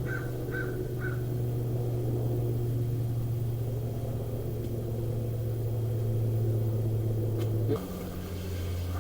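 A machine's motor hums steadily and drops suddenly to a lower hum about eight seconds in. A few short high chirps sound in the first second.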